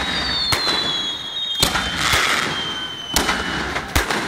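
Aerial fireworks shells bursting overhead: four sharp bangs about a second apart, with several high whistles slowly falling in pitch between them.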